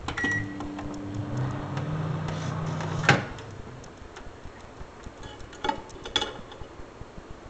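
Microwave oven starting with a short beep, then running with a steady low hum for about three seconds before it stops with a sharp click. A couple of light clicks follow near the end.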